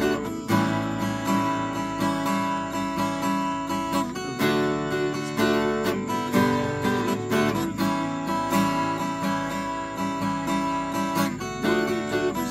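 Acoustic guitar strummed, chords played in a steady rhythm.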